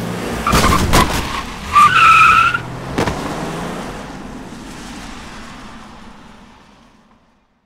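A car skidding with its tyres squealing, loudest about two seconds in, then a single sharp bang about a second later. The noise then fades away over the next few seconds.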